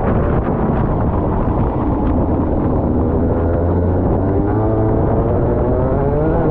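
Rotax Max 125cc single-cylinder two-stroke kart engine heard onboard: the revs fall away for about four seconds as the kart slows for a corner, then climb steadily as it accelerates out.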